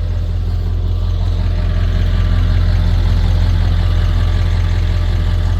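Ford F-250 pickup's engine idling with a steady low rumble.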